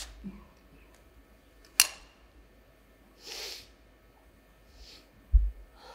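Quiet pause on a theatre stage: a sharp click about two seconds in, a short breath in the middle, and a low thump near the end.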